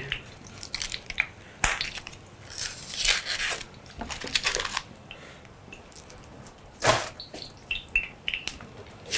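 Kitchen knife work: a knife and fork scraping through a boiled octopus tentacle, and a garlic clove crushed under the flat of a chef's knife on a wooden board. Scattered clicks and scrapes, with a sharp knock about seven seconds in.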